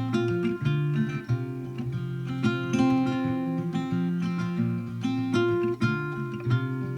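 Background music: an acoustic guitar picking a continuous run of notes.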